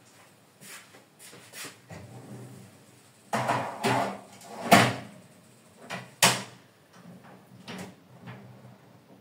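Oven door and rack being handled as a cake tin goes in to bake: a run of knocks and clatters, the sharpest a bang about halfway through and another about a second and a half later.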